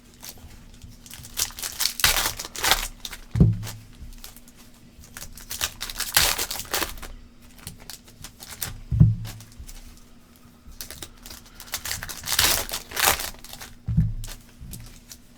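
Trading card pack wrappers crinkling and tearing open in several bursts, with a few dull thumps in between.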